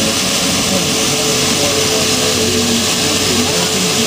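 Qantas Airbus A380's four Rolls-Royce Trent 900 jet engines running loud and steady as the airliner rolls along the runway for takeoff. It is a constant wide rush of noise with a steady droning tone in it.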